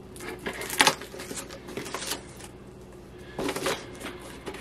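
Scissors cutting open a taped cardboard box: a few sharp snips and clicks, the loudest about a second in, and a burst of cardboard rustling and scraping about three and a half seconds in.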